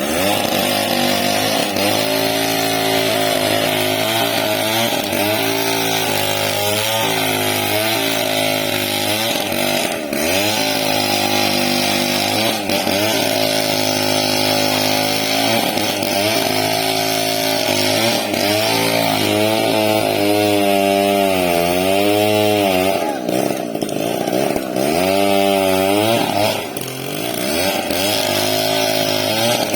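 Chainsaw running at speed through a large log. The engine pitch keeps sagging and recovering as the chain bogs under load, with deep swings a little past the middle and a brief drop near the end.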